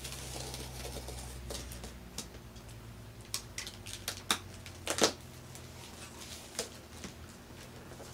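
Box cutter slicing along packing tape on a cardboard box, then the cardboard flaps being pried open with a run of sharp crackles and pops, the loudest about five seconds in.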